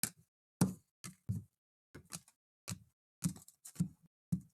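A string of about ten irregular light knocks and taps: trading cards and packs being handled on the table between packs.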